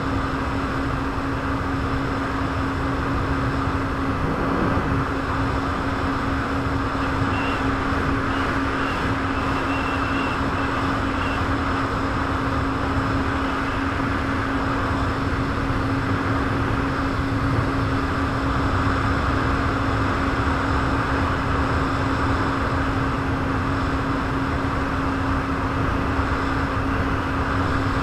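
Jet ski engine running at a steady pitch, over a constant rushing noise.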